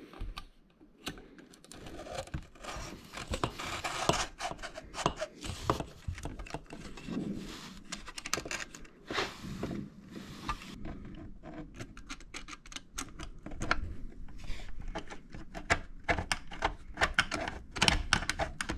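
Hands fitting a ribbed plastic air-intake hose onto a diesel heater's metal inlet pipe and tightening its jubilee clip with a screwdriver: irregular clicks, scrapes and rustling against the sheet-metal chassis.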